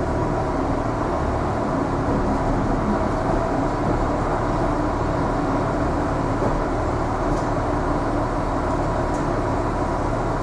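Irish Rail 29000 class diesel multiple unit running, heard from inside the carriage: a steady rumble and hum of engine and wheels on rail, with a few faint, brief high squeaks.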